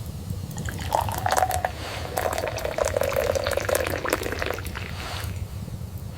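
Liquid pouring into a container, with many small splashing drips, for about three and a half seconds.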